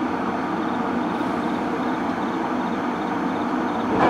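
JR Kyushu 813 series electric train pulling slowly along the platform: a steady rumble of wheels on rail and traction equipment, with a brief sharp sound about four seconds in.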